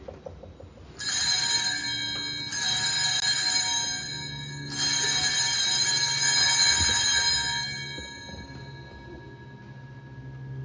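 Altar bells rung three times at the elevation of the consecrated host, each ring starting suddenly and then dying away, the third ringing longest.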